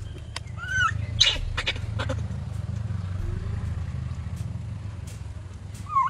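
Infant macaque crying in short high squeals, about a second in and again with a falling cry near the end, over a steady low rumble and a few sharp clicks.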